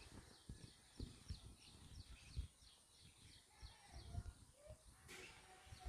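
Faint bird chirping: short, high, falling calls about two or three a second, over low irregular thumps.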